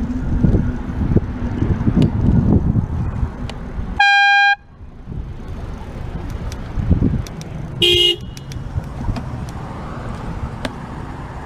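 Two horn honks over wind rumble and traffic noise from a moving bicycle: a loud, steady, single-pitch blast lasting about half a second about four seconds in, then a shorter honk of a different pitch about eight seconds in.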